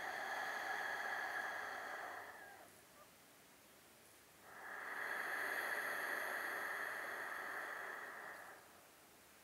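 Slow, deep yogic breathing during a pranayama: two long breaths of about four seconds each, with a pause of about two seconds between them.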